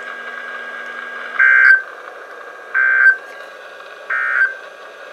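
Emergency Alert System end-of-message signal on NOAA Weather Radio: three short bursts of digital data tones, about one and a third seconds apart, over steady radio hiss. The bursts mark the end of the alert.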